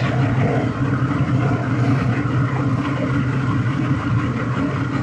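Towboat's outboard engine idling, a steady low hum.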